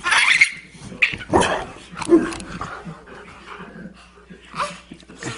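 Boxer dog barking and yipping in short, sharp calls, several loud ones in the first two seconds and fainter ones after.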